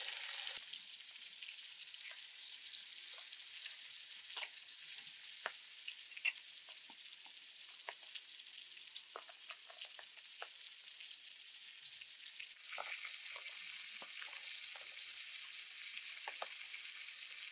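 Light rain falling in the forest: a steady soft hiss with scattered drops ticking here and there.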